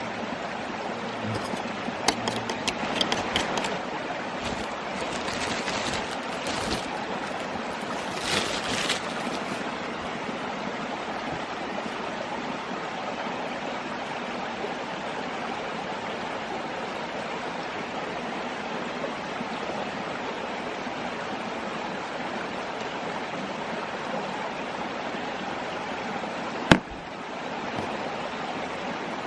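Mountain stream babbling steadily. A few light clicks and rustles come in the first several seconds, and a single sharp knock sounds near the end.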